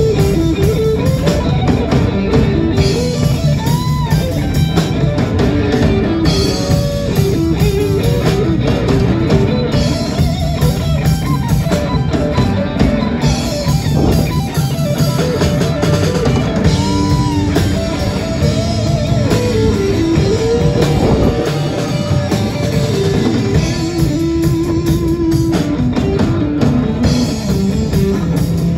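Live rock band playing an instrumental break: a lead guitar plays a melody with bending notes over a driving drum kit, bass and strummed guitars.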